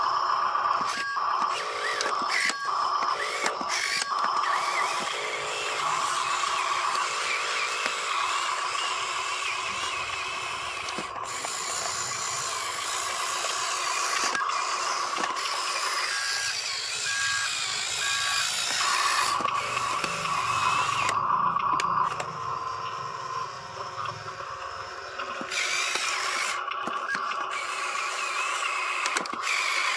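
Huina radio-controlled dump truck's small electric motors and gears whirring and ratcheting as the tipper bed moves and the truck drives, with a whine that shifts in pitch and breaks off several times.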